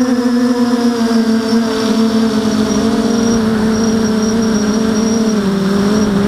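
Electric motors and propellers of an FPV multirotor in flight, heard from its onboard camera: a steady whine whose pitch sinks slowly and dips lower near the end as the throttle eases.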